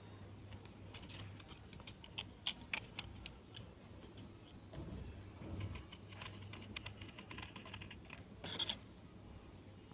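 Soaked, earthy crunchy material being handled and crumbled, giving quick irregular crisp clicks and crackles, with a louder crunch near the end. A low steady hum runs underneath.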